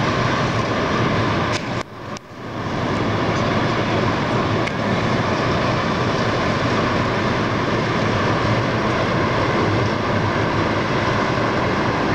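Steady outdoor background noise with no clear single source, broken by a brief dropout about two seconds in.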